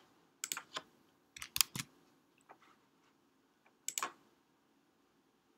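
A few light computer keyboard and mouse clicks, most of them in the first two seconds and one more near four seconds.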